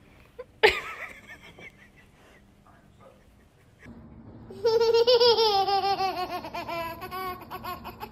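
A toddler laughing hard, a rapid run of high, pitched giggles that starts about four and a half seconds in and slowly fades. Near the start there is a single brief sharp cry.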